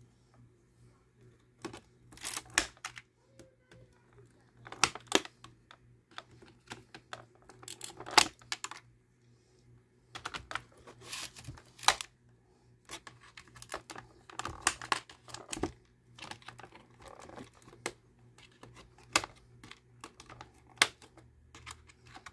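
Small cutters snipping the zip ties that hold action figures in a clear plastic packaging tray, with the stiff plastic clicking and crackling as it is handled, in irregular bursts of sharp clicks with short pauses between.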